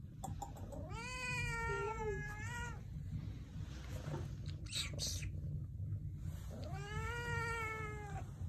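A cat meowing twice, each meow long and drawn out, rising then falling in pitch.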